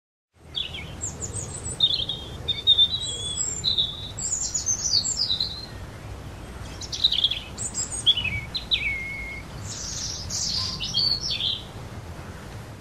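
Woodland birdsong: several small birds chirping and trilling in quick phrases, over a steady low background hum.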